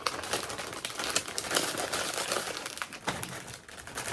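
Crinkly snack bag, most likely the Doritos chip bag, rustling and crackling as it is handled.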